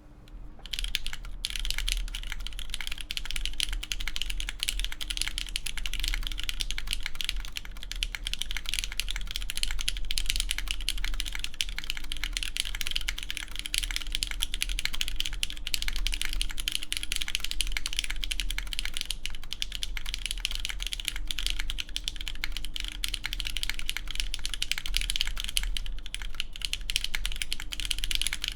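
Mechanical keyboard with lubed Cherry MX Red linear switches on a full aluminum plate with GMK keycaps, typed on continuously in a fast, dense stream of keystrokes that starts just under a second in.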